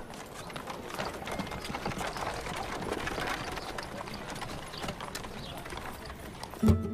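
Horse hooves clip-clopping and carriage wheels rattling over a dirt street as a horse-drawn carriage pulls away: a steady stream of small knocks. Music comes in right at the end.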